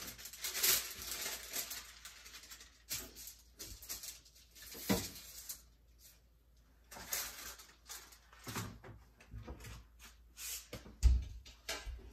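Parchment paper being handled and laid onto a baking tray: scattered rustles, crinkles and small clicks, with one louder thump near the end.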